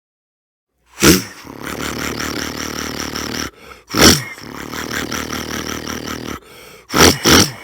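A man imitating an engine with his voice: a loud sudden burst about a second in, then a steady rough running sound. It breaks off and starts again with another burst, and two quick bursts come near the end.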